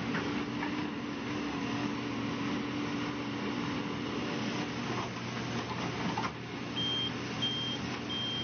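A heavy vehicle's engine running steadily, and near the end a reversing alarm beeping three times about two-thirds of a second apart, the sign of the machine backing up.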